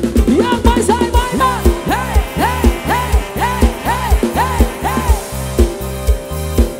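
Live band music from a Thai rot hae sound truck: drums and bass keep a steady dance beat while a lead instrument plays a run of sliding, bending notes, about two a second through the middle.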